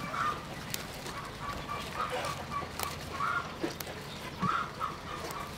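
Chickens clucking in short calls, repeated every second or so, with a few sharp clicks as roselle leaves are snapped off their stems.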